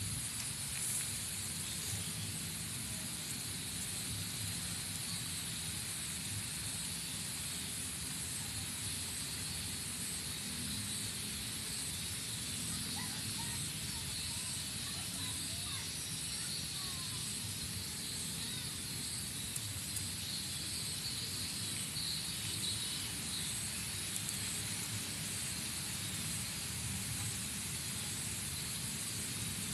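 Steady outdoor background noise: a high hiss and a low rumble, with a few faint high chirps about halfway through.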